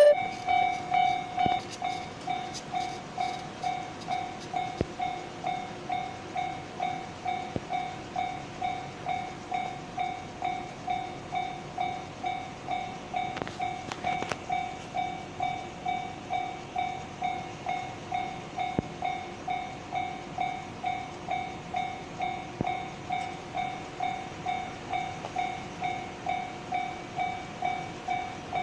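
Japanese railway level crossing's electronic warning bell ringing its repeated two-tone "kan-kan" at a steady pace of just under two strokes a second, the signal that a train is approaching.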